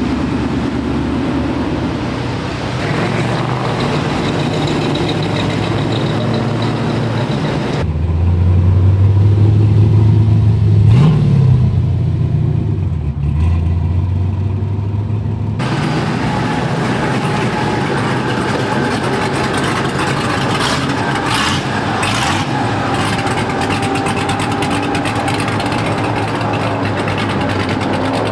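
Classic cars and pickup trucks driving slowly past one after another, engines running. About a third of the way in comes a deeper, louder engine rumble with a quick rev that rises and falls, then the sound changes abruptly to another passing car.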